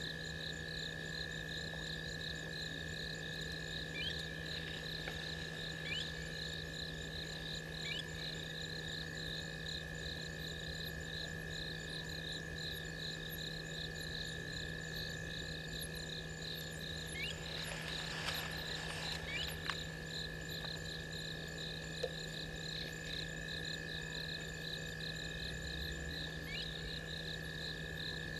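Night chorus of frogs and insects: a fast, evenly pulsing high trill over steady droning calls, with a brief rustle about two-thirds of the way through.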